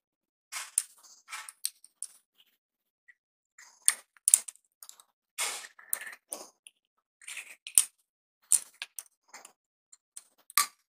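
Small screwdriver turning the brass terminal screw of a plastic two-way switch while a red wire end is pushed into the terminal: irregular light clicks and short scrapes, with quiet gaps between them.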